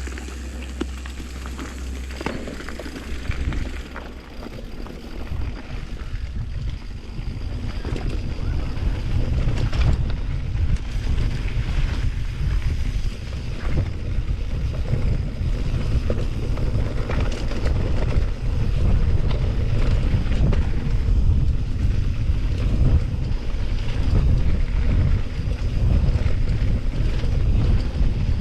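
Wind buffeting the microphone of a mountain biker riding downhill. It builds over the first few seconds as speed picks up, with frequent knocks and rattles over rough ground.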